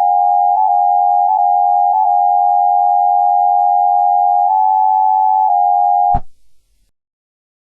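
Loud, steady electronic tone with a faint hiss under it, cut off abruptly with a click about six seconds in.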